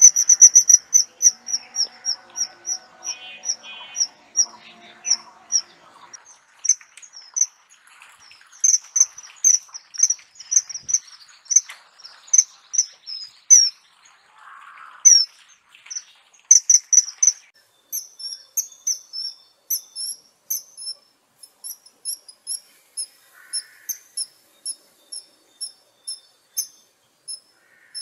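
Kingfisher calling: a long run of short, high, piercing notes repeated several times a second, with a couple of brief pauses midway, then a steadier, slightly softer series of about two to three notes a second.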